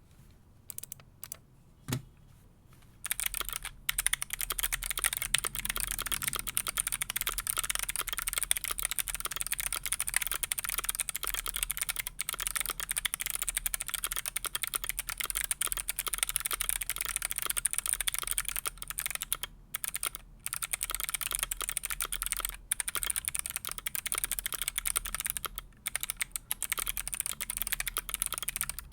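Loud, fast typing on a Keychron Q6 aluminium-cased mechanical keyboard with stock Kailh Box Navy clicky switches: a dense stream of sharp clicks. A few separate keystrokes come first, and the stream starts about three seconds in, with a few brief pauses later on.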